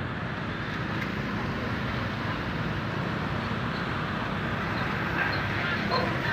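Steady rumble of vehicle traffic at a railway level crossing, with a few faint short high tones near the end.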